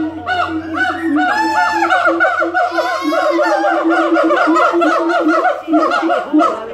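Gibbons singing loudly in chorus: several voices of rapid rising-and-falling whooping hoots overlapping one another.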